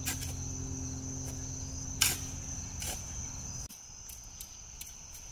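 Crickets chirring in a steady high-pitched trill, with a few shovel strikes into dirt, the loudest about two seconds in. A low hum underneath cuts off suddenly a little past halfway.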